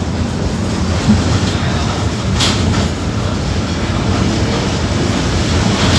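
Mercedes-Benz OF-1721 BlueTec 5 bus's diesel engine running steadily with a low rumble, with a sharp click about halfway through.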